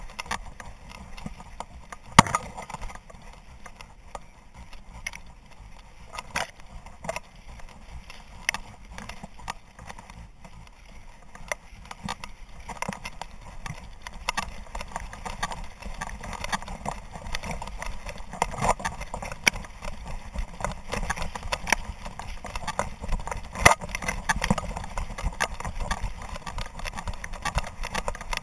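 A dog running through dry grass and crop stubble, heard from a camera strapped to its back: a rapid run of footfalls with grass swishing past and irregular clicks from the collar and camera mount. There is a sharp knock about two seconds in and another near the end.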